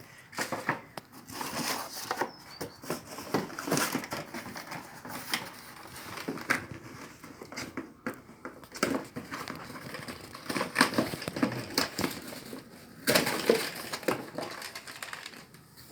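Packaging and parts being handled: irregular rustling and crinkling of packing material, with scattered clicks and knocks of plastic parts.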